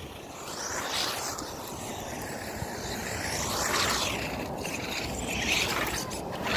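Electric drive motor of a Fayee FY03 Desert Eagle RC truck whining as it is driven, its pitch rising and falling several times with the throttle, over tyre and wind noise, with a few knocks near the end.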